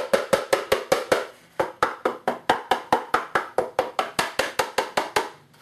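Rapid, even tapping on a hollow, wax-hardened cardboard egg box, about five knocks a second with a brief pause about one and a half seconds in. Each tap is sharp and woody, the sound of cardboard gone hard with the wax.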